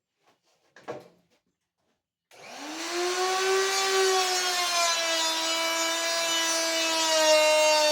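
A click, then an electric woodworking power tool switched on: its motor winds up to speed within about half a second into a steady high whine, its pitch sagging a little a couple of seconds later.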